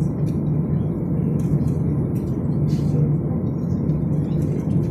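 Steady low rumble of an airliner's engines and airflow heard inside the passenger cabin before takeoff, with a few faint light clicks.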